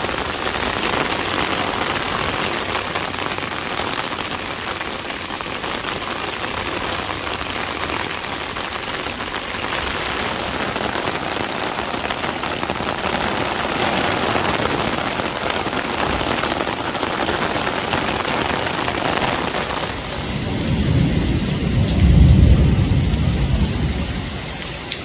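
Heavy rain pouring onto flooded pavement, a steady hiss. About twenty seconds in, a low rumble of thunder swells for a few seconds and becomes the loudest sound.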